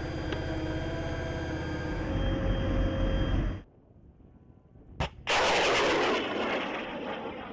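A steady engine hum for the first half, then, after a short lull, an Avenger launcher fires a Stinger missile: a sharp pop about five seconds in, and a moment later the loud rush of the rocket motor, which fades away toward the end.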